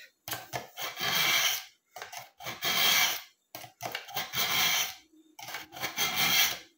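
Kitchen knife blade pulled through the coarse slot of a BAUM ZINDECH ZRT-400 manual pull-through sharpener: four gritty rasping strokes, each about a second long, with short pauses between them.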